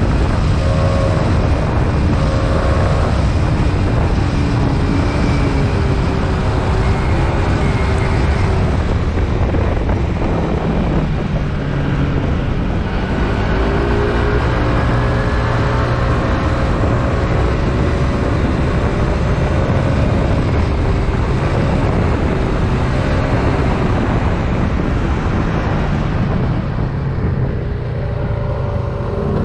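Wind rushing over the microphone on a moving scooter, over the PGO Tigra 150's single-cylinder engine, whose pitch rises and falls with the throttle. The engine eases off briefly near the end.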